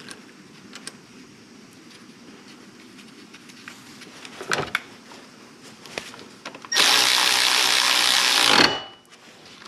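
Cordless electric ratchet running for just under two seconds, spinning down a fitting on a new power steering pump, starting and cutting off abruptly. Before it, a few light clicks and a knock of metal parts being handled.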